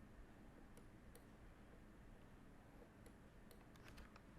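Faint computer mouse clicks: a few single clicks, then a quick cluster of them about three and a half seconds in, over a low room hum.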